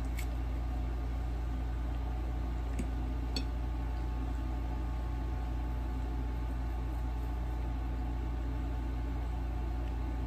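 Steady low background hum with a faint hiss. A few faint clicks of eating come in the first few seconds as the last forkful of noodles is taken and chewed.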